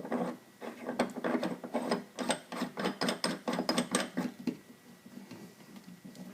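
Trim ring of a Marble Products 550 shampoo bowl faucet being turned by hand back onto the faucet body: a quick run of clicks and scraping, about four to five a second, that stops about four and a half seconds in.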